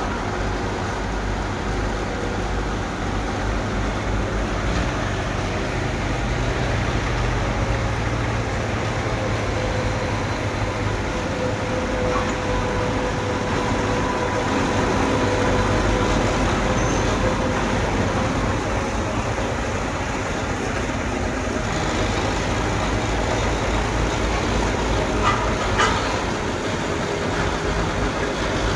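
Bulldozer's diesel engine running steadily under load, with a faint whine in the middle and two sharp knocks near the end.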